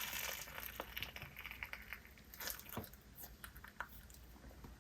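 Glossy school-glue slime being squished and stretched by hand: faint sticky squishes with scattered small crackles and pops.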